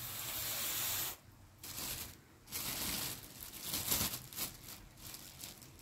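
Rustling and crinkling of a food packet being handled, in several short bursts followed by a few light clicks.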